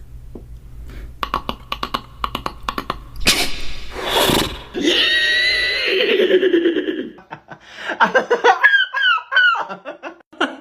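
Mouth-made sound effects: a quick run of clicks, then two loud noisy bursts, a held pitched tone, and gliding voice-like sounds.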